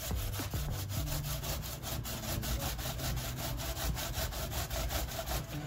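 Peeled cucumber being rubbed up and down the fine side of a stainless steel box grater: a rapid, regular rasping, one stroke after another, as it is shredded finely.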